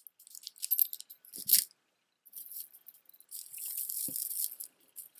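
Beaded jewelry being handled: strands of beads and stone chips clicking and rattling against each other, in short clusters with a longer, denser rattle a little past halfway.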